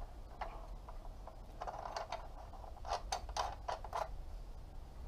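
Socket wrench running the nut onto a motorcycle's rear wheel axle: a string of short, irregular metal clicks and scrapes, mostly in the second half.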